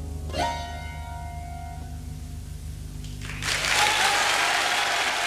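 The band's last struck chord rings out and fades over a held low note, then a concert audience breaks into loud applause about three and a half seconds in.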